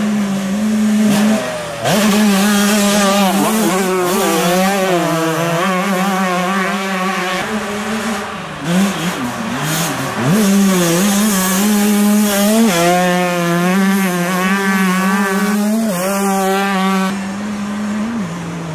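Motocross bikes' two-stroke engines racing, revving up and dropping back again and again as they shift and brake, over a steady engine drone.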